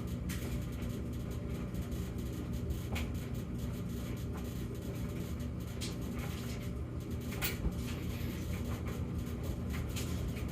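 Samsung gas dryer running normally, without its intermittent hum: a steady low drone from the running machine with scattered light clicks.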